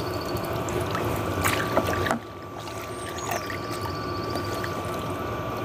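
Liquid sloshing and splashing in a bucket as a gloved hand swishes an aluminium carburettor float bowl through a solution that darkens the bare metal, with a few sharp clicks. The sloshing gets quieter about two seconds in.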